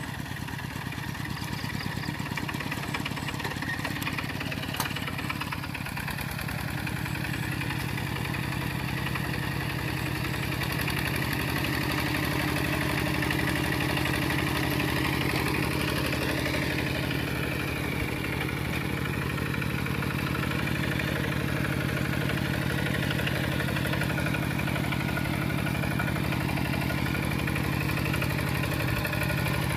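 Kubota RT120 single-cylinder diesel engine of a two-wheel walking tractor running steadily under load as the tractor works through mud, getting a little louder about six seconds in.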